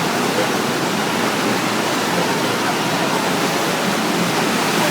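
Steady rush of churning water in a white-water raft ride's rapids channel.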